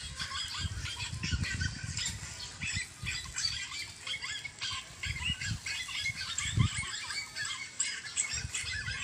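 Many small birds chirping busily all through, with irregular low-pitched bumps on the microphone now and then.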